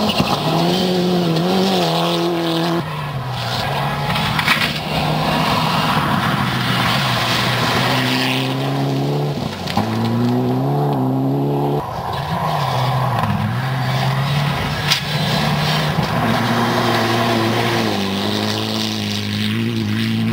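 Rally cars driven hard on a gravel stage: engines revving up and dropping back again and again with gear changes, over a haze of tyre and gravel noise. Two sharp cracks are heard, about four and a half and fifteen seconds in.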